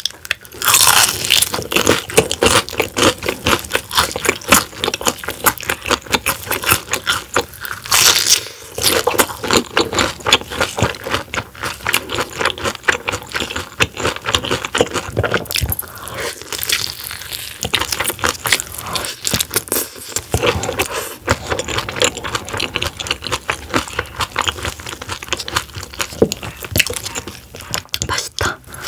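Close-up crunching and chewing of battered, deep-fried soft-shell crab, the shell eaten whole. Loud crackling bites about a second in and again around eight seconds in, with crisp crunchy chewing in between.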